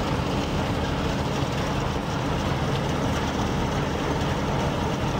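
Heavy engine running steadily, a low, even drone with no change in pitch.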